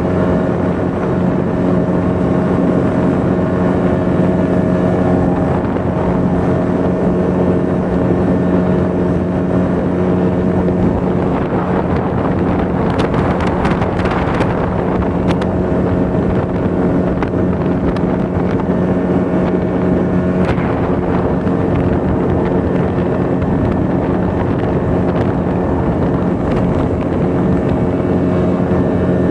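Motorboat engine running steadily at speed, with wind buffeting the microphone. A rush of spray or wind noise comes in about halfway through.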